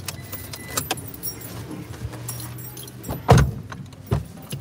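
Small clicks and rattles inside a car cabin, then a heavy thump about three seconds in and a lighter thump just before the end.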